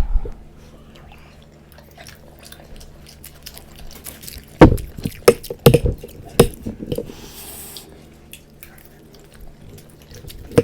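Close-up eating sounds of momos and Maggi noodles: wet chewing and mouth clicks, with a cluster of sharp clicks and knocks about halfway through, over a steady low hum.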